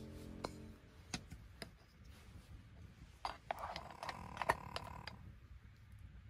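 Metal serving spoon clicking and scraping against the metal inner pot of a small electric rice cooker while rice is scooped out, in scattered faint clicks with a busier run of scrapes and knocks about three to five seconds in.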